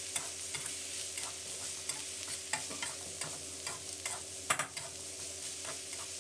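Metal spatula scraping and clacking against a metal wok while stir-frying water spinach and pork belly, over a steady sizzle of frying. The strokes come irregularly, several a second, with one louder clack about four and a half seconds in.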